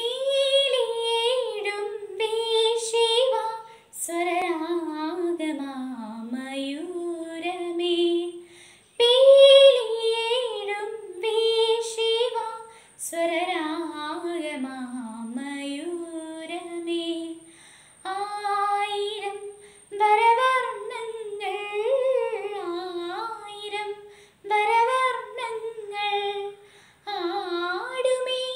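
A girl singing solo without accompaniment, a melody sung in phrases a few seconds long with brief pauses for breath between them.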